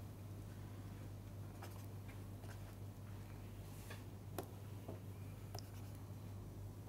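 Faint scattered taps and scratches of a stylus writing on a pen tablet, over a steady low hum.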